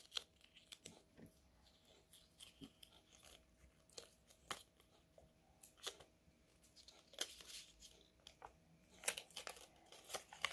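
Faint rustling and crinkling of a folded paper collector's guide being unfolded and handled, in scattered small crackles, a few louder ones near the end.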